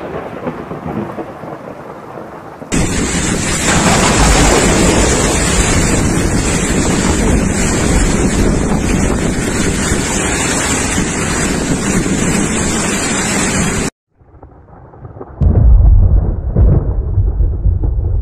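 Heavy rain pouring down in a loud, dense, steady hiss that starts suddenly a few seconds in and cuts off abruptly near the end. A loud low rumble of thunder follows at the very end.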